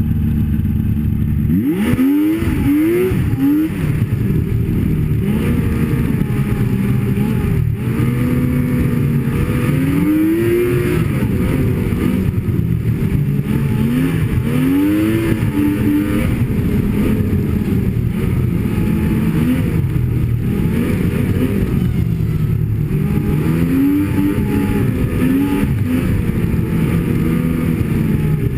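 Snowmobile engine running under way, its pitch rising and falling again and again as the throttle is opened and eased, over steady track and wind noise.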